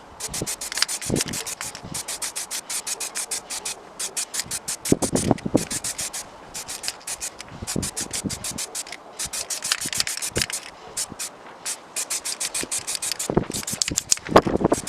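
Rapid back-and-forth hand sanding or abrasive scrubbing on a part of a rusty pipe cutter being restored, about five strokes a second in several runs with short breaks and a few duller knocks between them.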